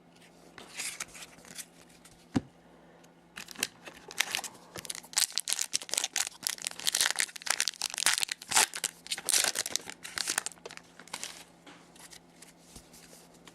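Foil trading-card pack wrapper being torn open and crinkled in the hands, in dense runs of crackling with a few sharp clicks between them.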